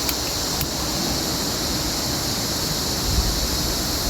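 Steady rushing of flowing water, an even hiss strongest in the high range. Two small clicks come near the start, and a low rumble swells briefly about three seconds in.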